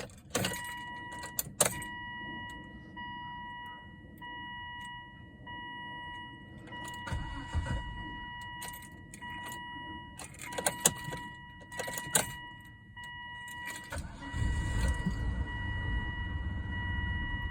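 Volvo S80 2.8 T6 twin-turbo straight-six running rough with a misfire, heard from inside the cabin; the engine rumble grows much louder about fourteen seconds in. A steady high-pitched whine and scattered rattling clicks sound over it.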